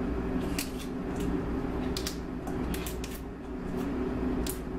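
Tough outer leaves of a whole artichoke snapping off as they are pulled by hand, several short sharp snaps at irregular intervals, over a steady low machine hum.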